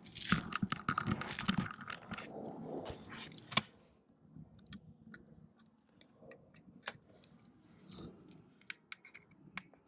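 Rustling and clicking as a diagnostic cable is handled and plugged in, ending in one sharp click about three and a half seconds in. After that, scattered faint clicks of laptop keys and touchpad.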